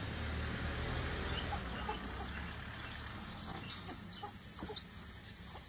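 African wild dogs twittering: many short, high, bird-like chirps, scattered and quick, the excited calls of a pack on a hunt. Under them runs a low steady hum that fades after about two seconds.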